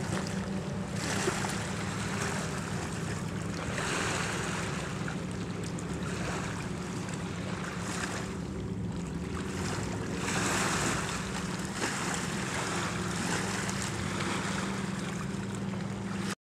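Small waves lapping on a rocky lakeshore, with wind. The sound swells every two to three seconds over a steady low hum, then cuts off abruptly near the end.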